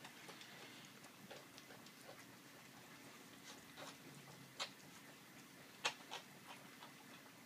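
Saint Bernard puppies eating soft puppy food from a shallow plastic dish: faint wet lapping and smacking, with a few sharper clicks, the loudest about four and a half and six seconds in.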